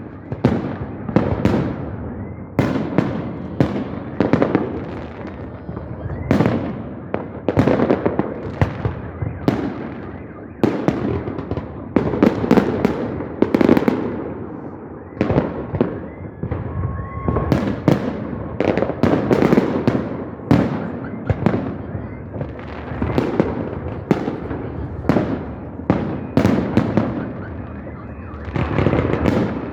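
Fireworks display: a continuous run of aerial shell bursts, a sharp bang every second or so, each trailing off in an echo.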